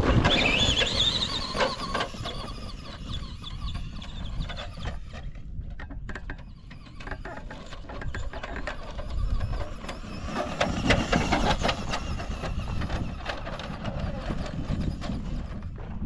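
Electric RC truck's motor whining up in pitch as it accelerates, then a steady low rumble of wind and tyres on loose dirt, with scattered ticks of stones.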